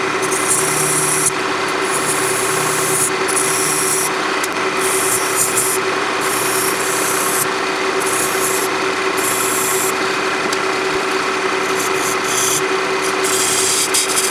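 Wood lathe running with a steady motor hum while a pointed tool is pressed into the spinning apple wood again and again, each pass a short scrape, cutting decorative lines into the blank.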